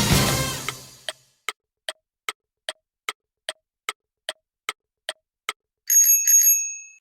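A string of comedic editing sound effects: a sudden crash that dies away over about a second, then a dozen quick, even ticks like a clock, about two and a half a second, then a bright bell-like ding struck a few times near the end.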